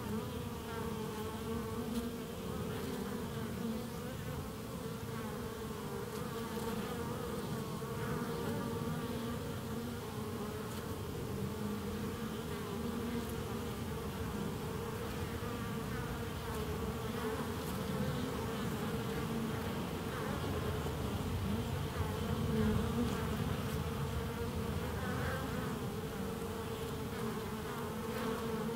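Honeybees buzzing in flight around a hive entrance: a steady hum with wavering higher tones.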